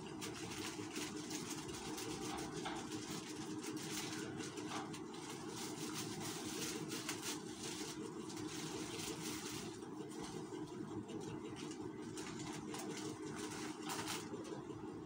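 A steady machine hum, with plastic snack-sachet strips crinkling on and off as they are handled.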